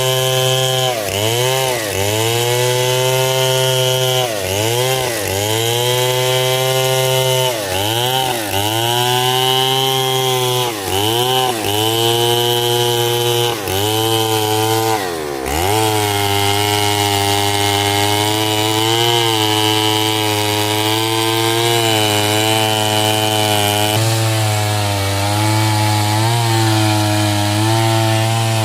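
Stihl chainsaw cutting hardwood coconut wood at full throttle. The engine note sags and recovers every second or two as the chain bites, dips sharply once about halfway through, then holds a steadier pitch.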